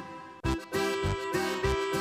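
Background music with a steady beat and held melody notes.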